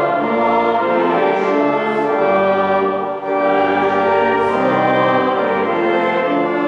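Choir singing a hymn with pipe organ accompaniment, in long sustained phrases, with a brief break between two phrases about halfway through.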